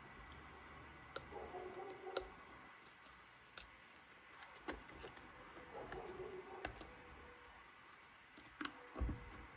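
Faint, irregular small clicks of a screwdriver tightening the screws of a CNC aluminium beadlock ring on an RC crawler wheel.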